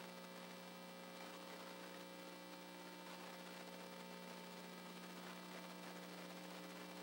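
Low, steady electrical mains hum with a faint hiss.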